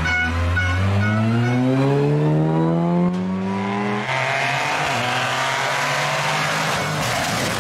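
Opel Adam rally car engine pulling hard out of a hairpin, its pitch rising steadily as it accelerates through one gear. About four seconds in, this gives way to a second rally car's engine heard farther off and noisier, a Peugeot 208, running toward the corner.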